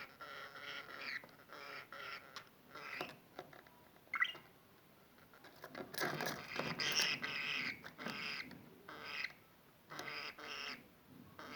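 Budgerigar chattering and warbling in bursts of short calls, with a brief lull about five seconds in and the loudest stretch just after it.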